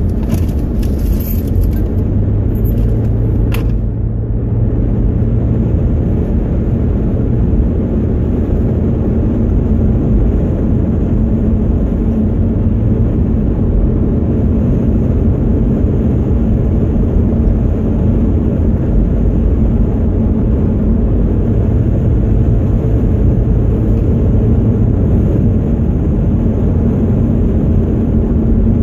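Car driving at steady road speed, heard from inside the cabin: an even engine drone with tyre and road rumble.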